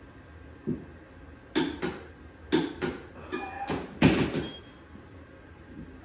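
Irregular metal clanks and knocks from wrench and flywheel stopper tool on a Tillotson 212 engine as its flywheel nut is torqued down, some ringing briefly. The loudest knock comes about four seconds in.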